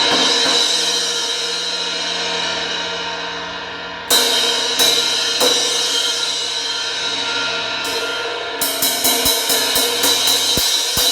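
Zildjian 18-inch Z3 Rock Crash cymbal, its edge crack repaired, being struck and ringing: a long wash dies away, then a sharp crash about four seconds in and two more soon after, and near the end a quick run of about ten strikes, some four a second.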